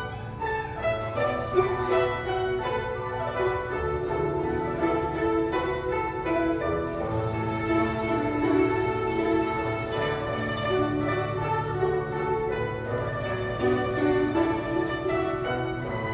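Guzheng ensemble playing: many plucked zither strings sounding melody and chords together over a steady low bass, without pause.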